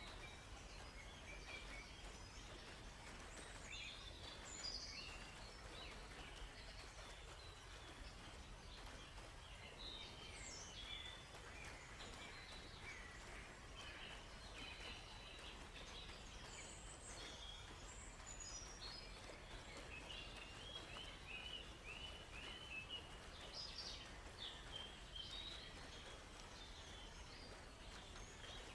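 Faint woodland birdsong: several birds chirping and calling in scattered short phrases, with a quick trill of repeated notes about two-thirds of the way through. Under it runs a steady low background hiss.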